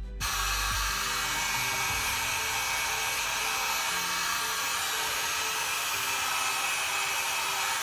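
Hot-air blower running steadily, a constant rush of air that switches on abruptly at the start, over quiet background music.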